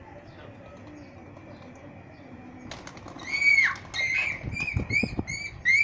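Pigeons' wings flapping as one is grabbed by hand, starting about halfway in, with a quick run of short, high chirping calls over it.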